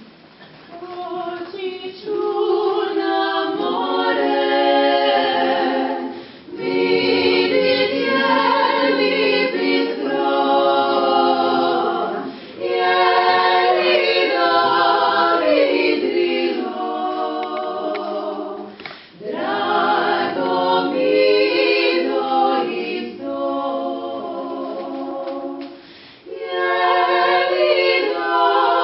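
Women's klapa, a Dalmatian a cappella vocal group, singing in close multi-part harmony. The phrases are separated by short breath breaks about every six seconds, and the singing swells in over the first couple of seconds.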